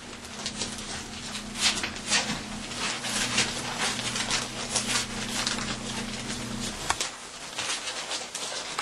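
German Shepherd puppies nursing and shifting about on newspaper: a run of quick small smacks, clicks and rustles. A steady low hum sounds under them and cuts out about seven seconds in.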